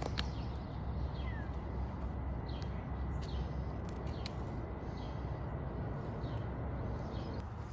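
Small birds chirping, short high falling chirps about once a second, over a steady low rumble.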